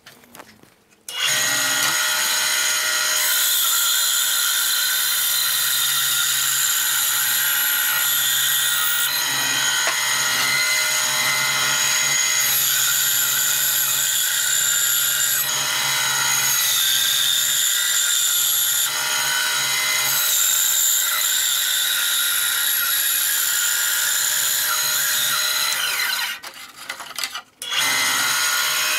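Ryobi benchtop bandsaw running, its blade cutting slowly through a thick piece of dense oak with a steady motor hum and saw noise. The sound starts about a second in and drops away briefly near the end before picking up again.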